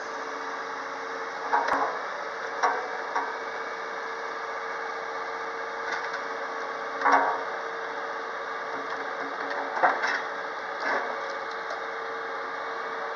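Komatsu PW150 wheeled excavator running with its hydraulics working the boom, bucket and dozer blade: a steady mechanical hum with one constant tone, broken by several short clunks.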